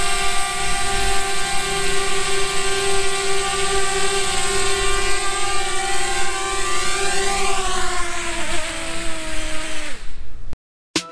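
Small camera quadcopter drone's propellers whining steadily up close. Near the end the pitch falls as the motors spin down after landing, and the sound cuts off.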